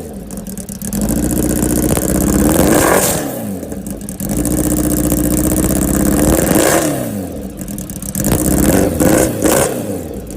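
Kawasaki Ninja H2R's supercharged inline-four engine revving hard on the throttle: two long climbs in revs that fall back, then several quick throttle blips near the end.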